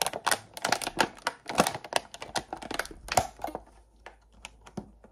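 Thin clear plastic clamshell food container crackling and clicking as it is handled and opened: a quick run of sharp crackles that thins out to a few scattered clicks after about three and a half seconds.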